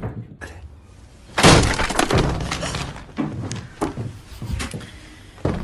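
A sudden crash like something breaking about a second and a half in, trailing into a clatter, followed by several separate sharp knocks.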